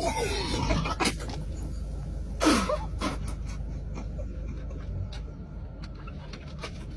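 A person gasping and wheezing in short breathy rushes, strained from chugging Sprite. The strongest comes about two and a half seconds in and drops sharply in pitch, with a few sharp clicks in between.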